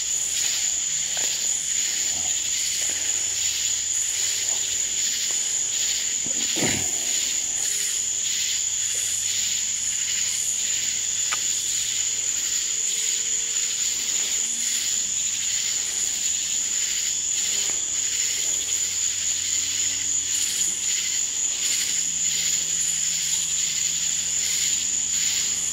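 Night-time chorus of crickets: a steady, high-pitched, unbroken shrill.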